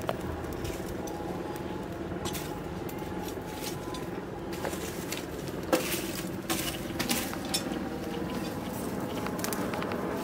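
Blacksmith's metal tongs clinking and scraping among the coals of a charcoal forge as the fire and the steel are shifted. The sharpest clink comes about halfway through and a few more follow quickly, over a steady hum.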